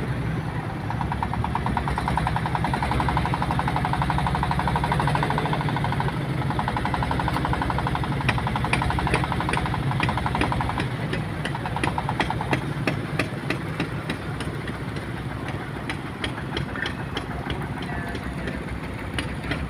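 An engine running with a rapid, even knocking pulse that dies away about eleven seconds in. From about eight seconds in, a run of sharp clacks carries on to the end.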